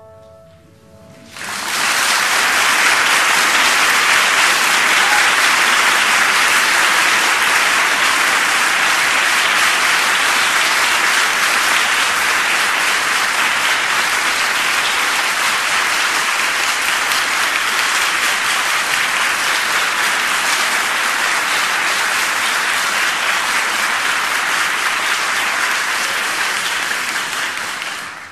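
Audience applauding in a live recital hall. The applause breaks out about a second and a half in, as the last notes of the song's accompaniment die away, holds steady, and fades just before the end.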